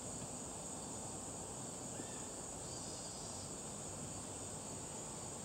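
Steady high-pitched chorus of insects, with faint even background noise.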